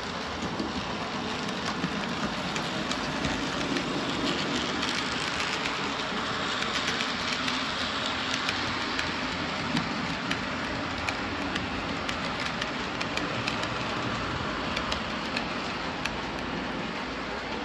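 Model freight train wagons rolling past on a model railway, their wheels running on the track with a steady rumble and many small clicks over the rail joints, a little louder in the middle as the train passes.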